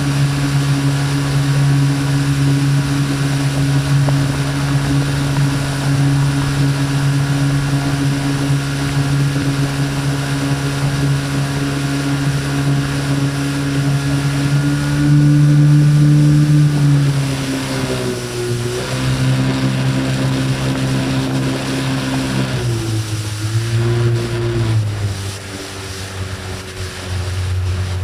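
Evinrude 40 E-TEC two-stroke outboard motor running steadily under way, with wind and water rushing past the hull. Its pitch drops twice as the engine slows, once about two-thirds of the way through and again near the end.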